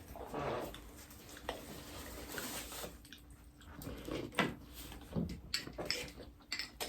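Close-miked eating sounds: faint chewing and mouth noises, with scattered small clicks and knocks.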